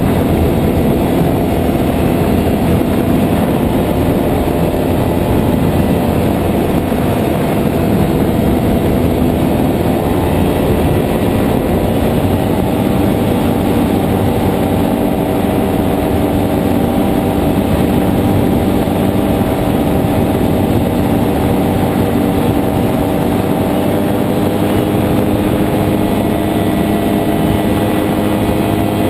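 JPX 320 single-cylinder two-stroke engine of a nano trike running steadily in flight, with its propeller whirring. Heavy wind buffets the microphone. The engine note shifts slightly about ten seconds in.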